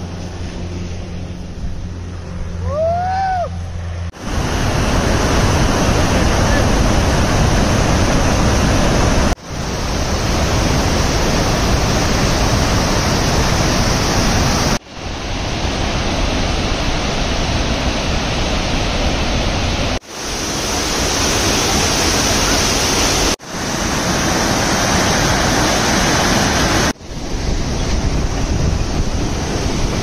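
Loud, steady rush of a large waterfall pouring over rock, heard in several takes that each cut off abruptly. Before it come about four seconds of a quieter steady low hum, with a short rising-and-falling whistle about three seconds in.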